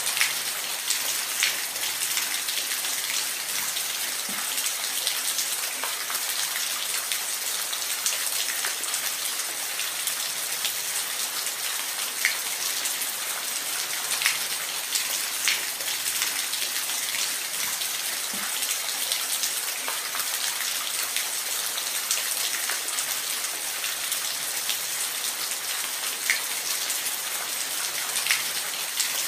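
Steady rain falling in a forest, a constant high hiss with individual drops ticking sharply at irregular moments.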